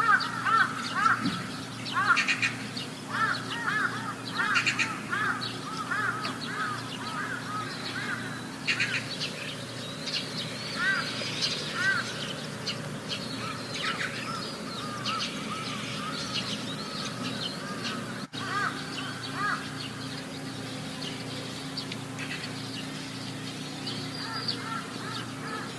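Birds calling: many short, arched chirping notes in quick runs, thickest in the first few seconds and again midway, over a steady low hum.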